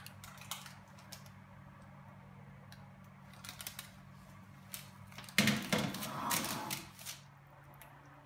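Kitchen handling sounds over a low steady hum: scattered light clicks and knocks, then about a second and a half of louder rustling and scraping past the middle as baked meatballs go from a paper-lined baking tray into a pan of cream sauce.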